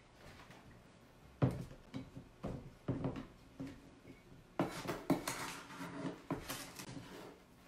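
Plastic storage bin and its lid being handled: a few sharp knocks and clatters as the bin is set down and the lid comes off. Then a scraping rustle about halfway through as a measuring cup scoops sugar out of the bin.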